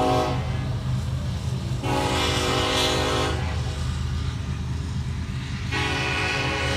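Union Pacific diesel locomotive's multi-chime air horn sounding in blasts: one cuts off just after the start, a second lasts about a second and a half in the middle, and a third starts near the end. Beneath the horn runs the steady low rumble of the locomotive and train.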